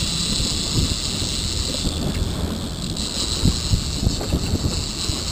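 Trolling boat underway: the engine's low rumble under wind buffeting the microphone, with a steady high hiss over the wake.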